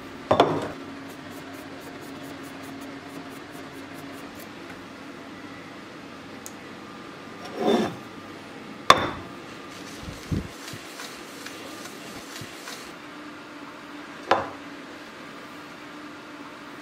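A glass plate and a water whetstone being handled and set down on a countertop: a few separate knocks and clinks, the sharpest and most glassy about nine seconds in, over a steady low hum.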